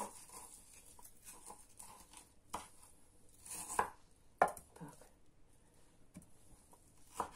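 Kitchen knife cutting smoked chicken leg meat on a wooden cutting board: a few irregular knocks of the blade on the board, the loudest a little over four seconds in.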